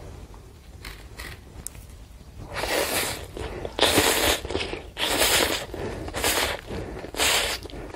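A person slurping yukgaejang instant cup noodles into the mouth: about five loud slurps roughly a second apart, starting a couple of seconds in.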